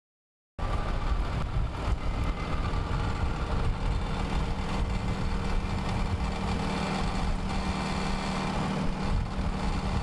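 An engine idling steadily, with a fluctuating low rumble of wind on the microphone; it cuts in suddenly about half a second in.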